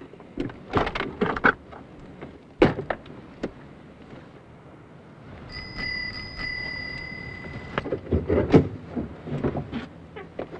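A few clicks and a sharp knock, then a bicycle bell ringing steadily for about two seconds, followed by clunks and rattles of a car door being opened.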